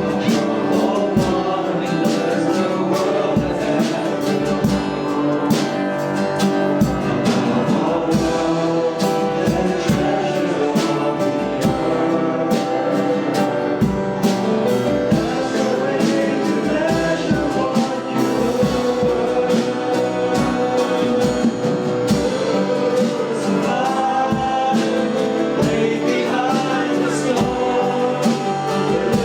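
Live church worship music: a band playing with a steady beat while voices sing together.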